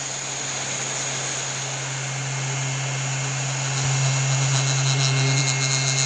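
Hot air rework station blowing steadily on a USB port to melt its solder for removal: a constant blower hum with an airy hiss. It grows a little louder and brighter toward the end.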